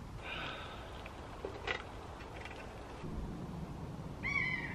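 Short high-pitched animal calls: one just after the start and a longer one near the end, with a sharp click in between.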